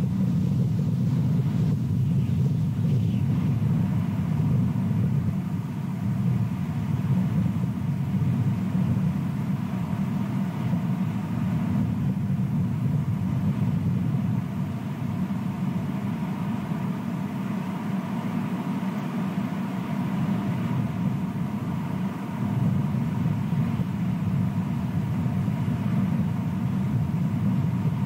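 A steady low rumble with slow swells in level and no distinct events.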